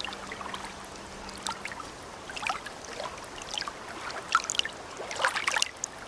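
Water splashing and trickling, with a scattering of short, irregular splashes that are loudest in the second half.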